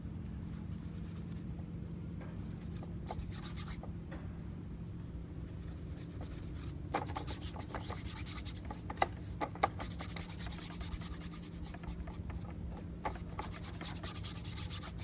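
Paintbrush rubbing and scrubbing paint onto a painting panel in short, intermittent strokes, sparse at first and busier from about six seconds in, with a few small taps. A steady low hum runs underneath.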